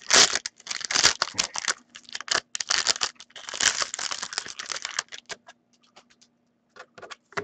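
Foil wrapper of a hockey trading-card pack being torn open and crinkled by hand for about five seconds, then a few soft clicks and taps as the stack of cards is handled.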